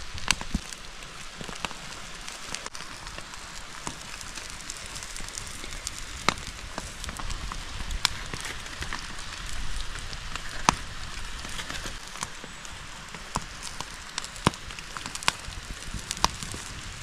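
Wood fire crackling: scattered sharp pops over a steady hiss.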